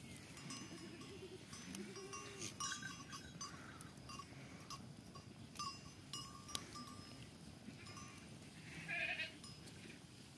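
Goats bleating, with animal bells tinkling and a wood fire crackling; the loudest bleat comes near the end.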